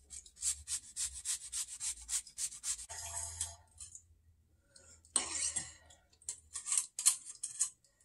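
Lemon rind grated on a fine rasp grater: quick rasping strokes of the lemon against the metal blade, about five a second, for the first three seconds. Then a louder single scrape, and a few more short strokes near the end as zest is worked off the grater.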